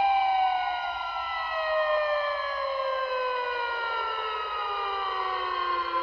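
Siren sound wailing, several overlapping tones sliding slowly down in pitch together.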